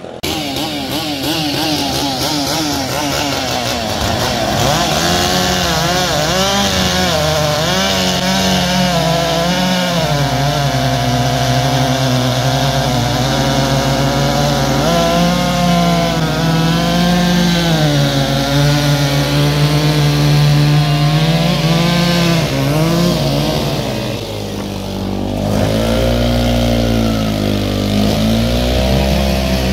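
Two-stroke chainsaws cutting through thick logs, engines running at high revs, their pitch sagging and recovering as the chain bites into the wood. About 25 seconds in, the sound dips briefly and a different, older, lower-pitched saw takes over.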